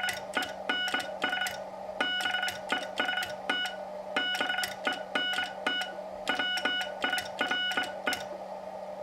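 Morse code sent by hand on a telegraph key: the key's contacts click along with pulses of the code tone. It comes in four groups with short pauses between them, spelling BENS BEST BENT WIRE with the letters spaced so they can be copied.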